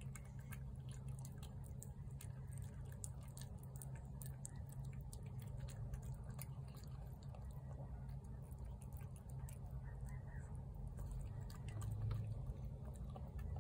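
Cat chewing and lapping wet cat food from a plate: many small, irregular wet clicks and smacks, over a low, steady hum.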